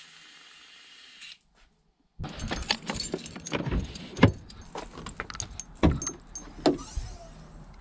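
Car keys jangling in hand with a run of sharp clicks and knocks as a car's hood release is pulled and the bonnet latch worked. The loudest knock comes about four seconds in.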